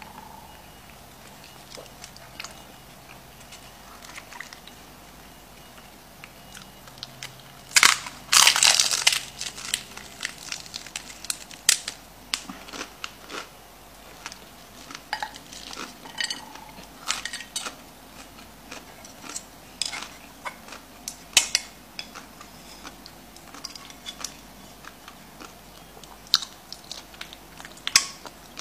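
Close-miked bites and chewing of a hard-shell taco, sharp brittle crunches at an uneven pace. The loudest run of crunches comes about eight seconds in, as the shell is bitten into and breaks.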